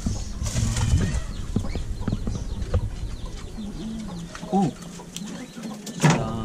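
Animal calls: a scatter of short high chirps and squeaks, a louder call about four and a half seconds in, and a sharp knock or clatter near the end.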